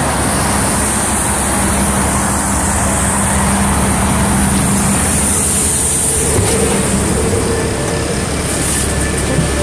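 Steady drone of a LiAZ 6213.22 articulated diesel city bus standing at a stop with its doors open, with a steady hum that shifts to a higher note about six seconds in.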